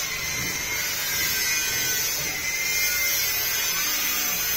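A small electric motor running steadily: a constant buzzing hum with hiss on top.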